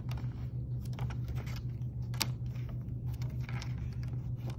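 A ruler pressed and drawn along a fold in watercolor paper to crease it, giving scattered light clicks and paper rustling, one sharper click about two seconds in. A steady low hum runs underneath.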